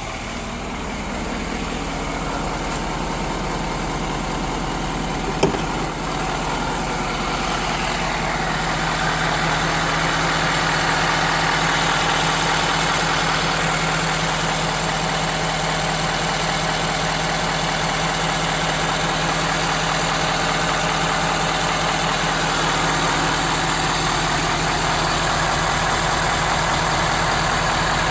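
Ford 6.7L Power Stroke V8 turbo-diesel idling warm with its steady diesel clatter, the engine knock under investigation being harder to pick out now that it has warmed up. It grows louder over the first several seconds, with a single sharp click about five seconds in.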